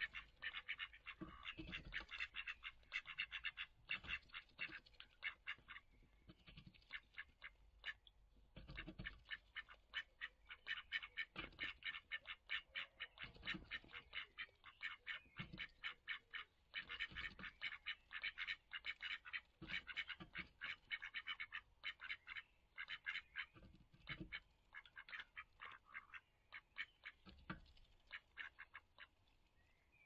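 A female duck dabbling at bird seed in a feeding bowl: long runs of rapid bill clicks and smacks with short pauses, and now and then a dull knock against the bowl.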